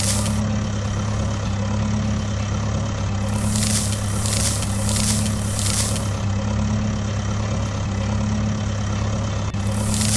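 Truck engine running steadily with an even, pulsing low hum. A hissing swish comes and goes twice, in the middle and near the end.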